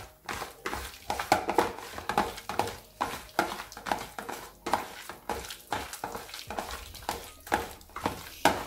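Hands kneading and turning diced raw chicken breast with dry seasoning in a plastic tub: an irregular run of short squishing, rubbing strokes, several a second.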